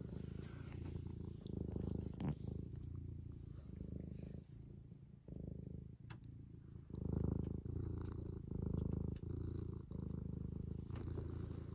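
Domestic cat purring close to the microphone: a steady low rumble that swells and eases with each breath, growing louder about seven seconds in. Faint clicks and rustles of fur brush against the microphone.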